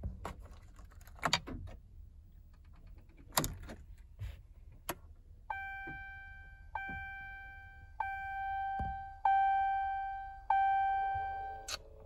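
Dashboard warning chime of a 2014 RAM 5500: a steady single-pitched tone that starts over five times, about once every second and a quarter, in the second half. Before it come a few sharp clicks.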